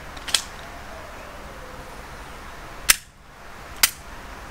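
Glock 44 .22 LR pistol fired twice, about a second apart, each a sharp crack. A smaller crack comes about two and a half seconds before them.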